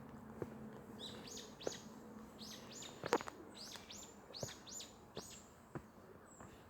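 A songbird singing a quick series of high, upward-sweeping notes, about ten of them over four seconds. A few short sharp knocks come through as well, the loudest about three seconds in.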